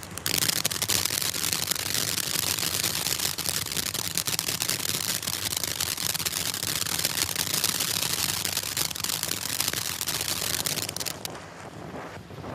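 Black Cat Tropical Thunder firework fountain spraying sparks with a dense, rapid crackle of small pops over a hiss. The crackle cuts off about eleven seconds in, leaving a quieter hiss.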